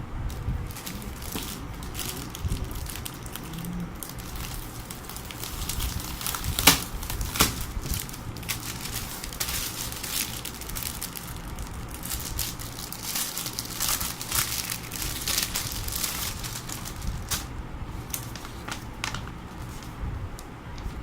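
Packaging being handled and opened: irregular crinkling and rustling, with two sharper clicks about seven seconds in.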